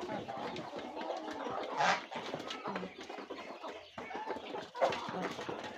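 Mixed flock of chickens, ducks and geese feeding from metal basins of rice: many short pecking and dabbling clicks with scattered clucking calls. A louder sound about two seconds in, and another near five seconds.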